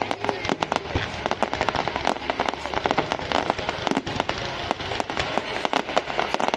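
Fireworks bursting in a rapid barrage: a dense run of bangs and crackles, many each second.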